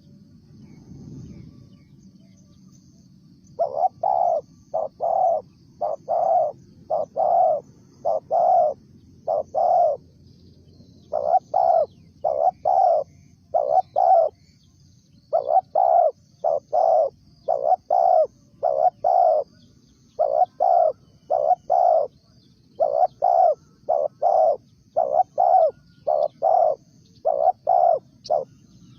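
Spotted dove cooing, starting a few seconds in and repeating its low coo phrases in short groups of notes. Faint high chirping runs behind it.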